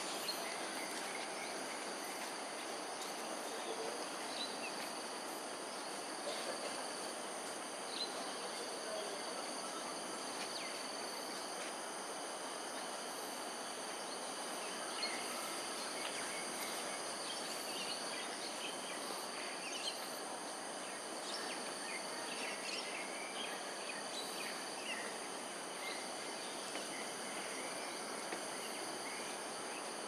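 Outdoor ambience of insects holding a steady high drone, several tones at once, over a broad even hiss. Brief chirps come and go, more of them in the second half.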